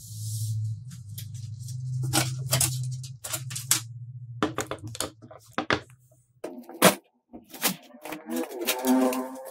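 Clicks, knocks and rattles of a steel PC tower case being handled, over a low steady hum that stops about six seconds in. Near the end the plastic front bezel is pulled off, with plastic creaking and clattering.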